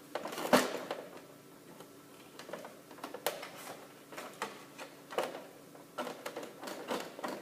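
Irregular clicks and knocks of printer parts being handled and worked loose during disassembly, the sharpest knock about half a second in.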